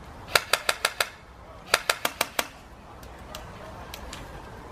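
Airsoft rifle firing two quick strings of shots, about six and then five, at roughly six or seven shots a second, with a few fainter shots after.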